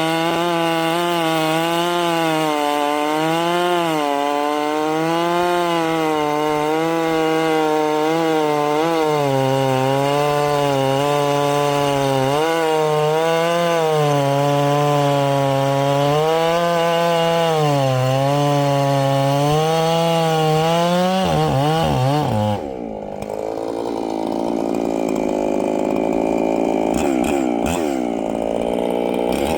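Ported Echo CS-7310 two-stroke chainsaw running at high revs, its pitch wavering up and down as it cuts through wood. Near the end the pitch drops sharply and the sound turns muffled.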